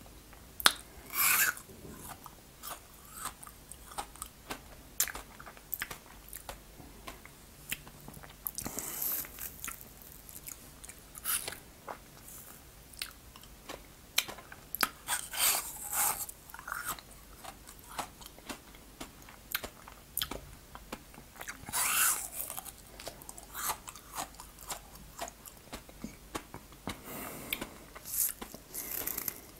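Close-miked biting and chewing of a frozen fruit ice pop, with crunching of the ice, in irregular bouts every few seconds.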